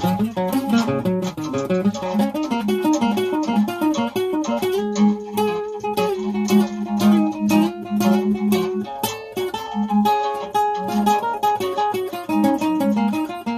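Acoustic guitar played solo: a blues tune of plucked single notes over a repeated bass note.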